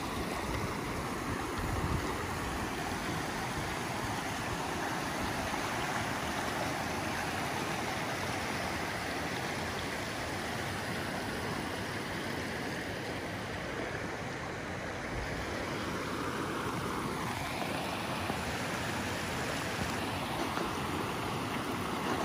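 A stream running over rocks: a steady, even rushing of water.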